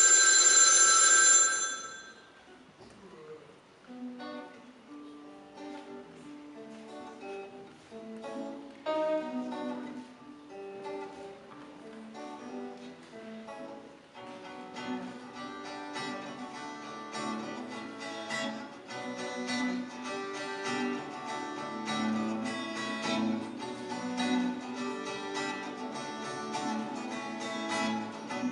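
A bell alarm clock rings loudly and stops abruptly about two seconds in. Guitar music with plucked notes follows, growing fuller and louder from about halfway through.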